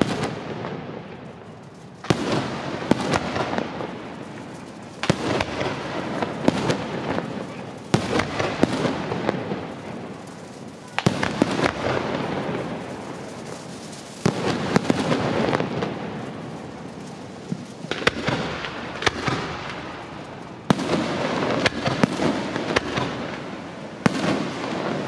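Aerial firework shells bursting one after another, a sharp bang about every three seconds, each followed by dense crackling and popping that fades away.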